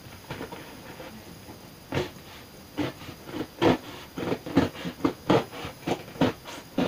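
Duct tape on a package being cut and pulled open: quiet at first, then from about two seconds in a string of short, irregular crackles and rips from the tape and its wrapping.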